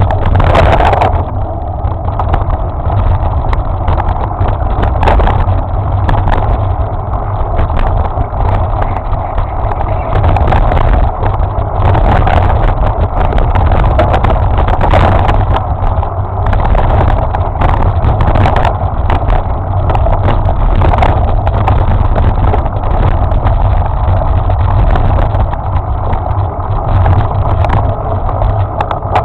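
Loud wind rumble and jolting on a camera carried fast along a bumpy dirt trail, with frequent knocks and rattles from the mount.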